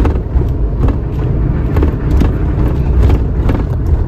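Inside the cab of a GAZelle Next van on the move: a steady low rumble of engine and road noise, with irregular knocks. The engine has just been switched over to its faulty propane system.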